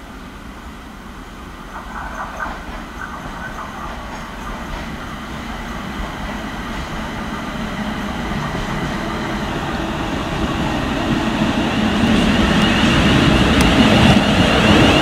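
Class 380 electric multiple unit approaching and running into the station along the rails, its rumble and wheel noise growing steadily louder as it nears. A high whine comes in near the end as the front passes close by.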